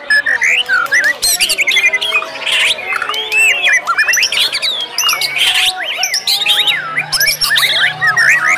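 White-rumped shamas (murai batu) singing loudly and without pause: several birds' rapid whistles, trills and harsh chattering calls overlapping in a dense chorus, as when competing shamas sing against one another.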